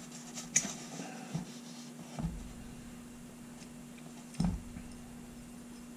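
Small steel parts of a top-break revolver being handled and worked apart by hand: a few scattered light clicks and knocks of metal, the sharpest about half a second in and a duller knock a little past four seconds, over a steady low hum.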